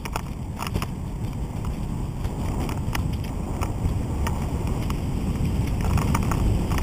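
Wind buffeting the microphone and tyre rumble from an ICE recumbent trike coasting downhill on a concrete path, growing louder as it picks up speed. Scattered light clicks and knocks ride over it.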